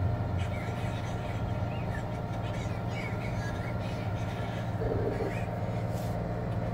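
Samsung front-loading washing machine with a digital inverter motor running with a steady hum. Birds chirp faintly over it.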